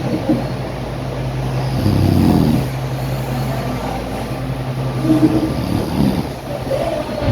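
A woman snoring heavily in her sleep, with two louder rumbling snores, one about two seconds in and one about five seconds in, over a steady low drone.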